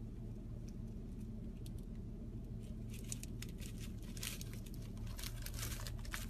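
A plastic bag crinkling as a marmoset handles and pulls at it: a few faint ticks at first, then dense crackling rustles from about three seconds in, over a steady low hum.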